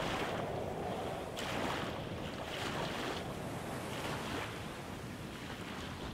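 Footsteps crunching on beach gravel, a few irregular steps, over wind and waves lapping the shore.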